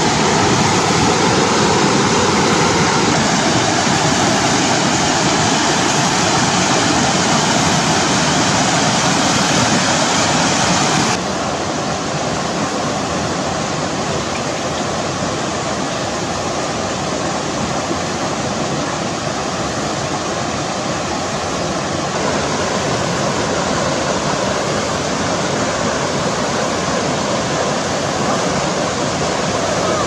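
Waterfall and river rapids rushing with a steady, loud roar of water. The level drops a little about a third of the way through and rises again about two-thirds of the way in.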